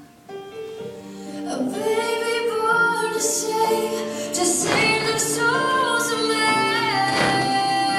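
A Christmas worship song plays, a woman's voice holding long notes over instrumental backing. It starts soft and swells louder about a second and a half in.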